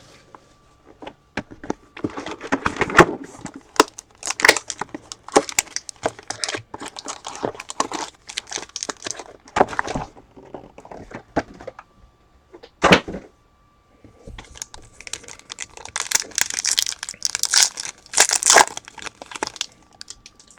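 Sports card box and packs being torn open: wrappers crinkling and tearing, with rustling and sharp clicks as the cards are handled. It comes in irregular bursts, loudest near the end.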